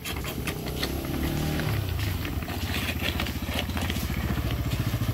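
Motorcycle engine running with a fast, even putter that grows louder near the end, after a brief rise in pitch about a second in.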